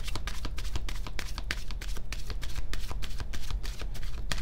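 A tarot deck being shuffled by hand: a quick, continuous run of crisp card clicks over a low, steady hum.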